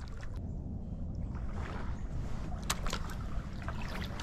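Kayak drifting down a creek: water trickling and lapping at the hull over a low, steady rumble, with a few light clicks.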